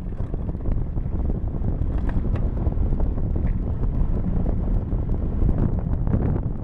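Wind buffeting the microphone of a bike-mounted Cycliq camera at about 38 km/h, over a steady rumble of tyres on the path, with scattered small clicks and rattles from the bike.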